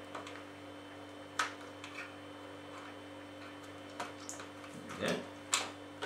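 A handful of short, sharp plastic clicks and taps from handling the floppy drive's ribbon cable and connector in an open Amiga 1200 case, over a low steady hum.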